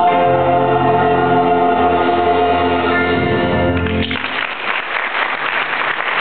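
Church choir holding the final chord of a gospel song over a sustained low note, ending about four seconds in. Applause follows.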